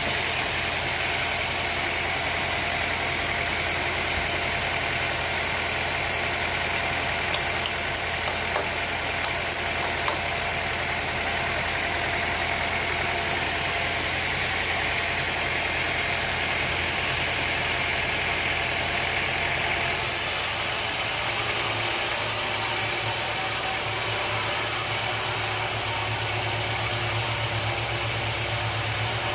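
Sawmill machinery running steadily: a low motor hum under a constant hiss. The hum changes pitch about twenty seconds in.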